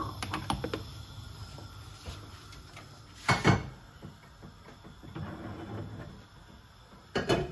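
Ceramic teapot and metal kettle knocking against each other and the gas hob as the teapot is handled and set on top of the kettle for Turkish tea: a few light clinks at the start, a loud clunk about three seconds in and another just before the end.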